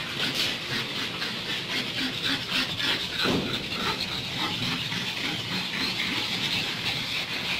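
Pugs jostling on a concrete floor: many small clicks and scuffles over a steady hiss, with one short cry from a dog about three seconds in.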